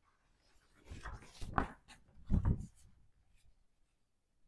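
Large paper poster being unfolded and shaken open, rustling and crackling in a few short bursts in the middle.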